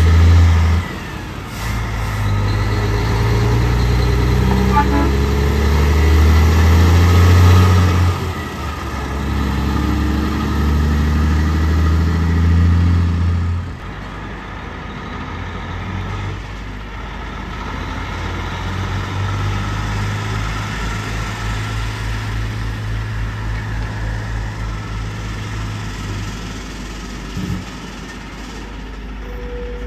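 Heavy trucks' diesel engines running with a deep, steady drone, loud for the first half, then dropping suddenly to a quieter steady engine hum about halfway through.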